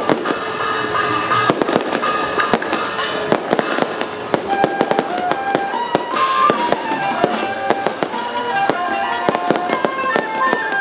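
Fireworks crackling and banging in quick, irregular pops over music. About four seconds in, a melody of stepped notes comes in on top.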